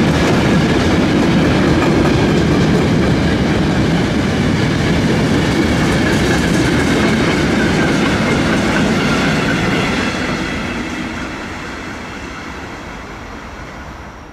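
Freight train passing at close range: a steady rumble and rattle of hopper and tank wagons rolling over the rail joints. After about ten seconds the last wagon goes by and the sound fades away, leaving a faint high whine from the rails.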